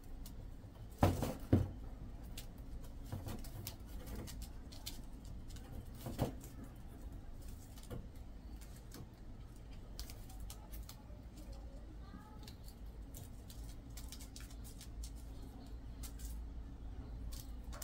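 Kittens scuffling and pawing at a cable on a woven plastic mat: light taps and scratches throughout, with two louder knocks about a second in and another around six seconds. A few faint chirps in the second half.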